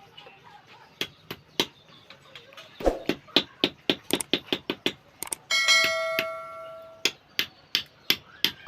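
Hammer striking metal as a sickle is worked on: a few blows about a second in, then steady strikes about four a second. Just past halfway one blow leaves the metal ringing for over a second.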